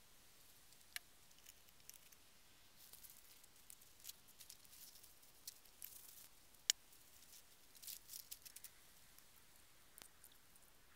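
Near silence with faint, scattered clicks and light rustling; one sharper click comes about two-thirds of the way through.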